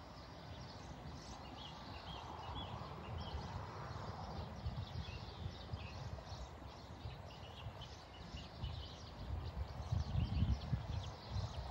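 A horse's hooves thudding on grass and soft dirt at a trot, louder near the end as the horse comes closer.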